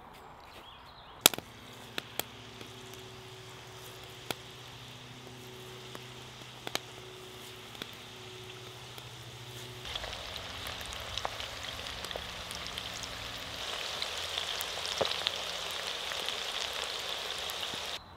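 Breadcrumbed squid rings deep-frying in hot oil, a steady sizzle with scattered sharp pops and crackles. The sizzle grows louder about ten seconds in.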